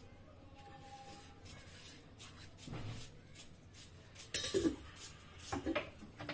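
A few knocks and clatters of a small spice bowl and a plastic mixing bowl being handled, with a soft thump about three seconds in and the loudest knocks about four and a half seconds in.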